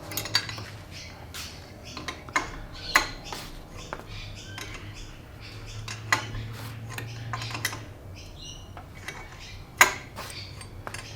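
Metal tools and parts clinking and knocking as they are handled, a dozen or so sharp clinks with short ringing, the loudest near the end, over a faint steady low hum.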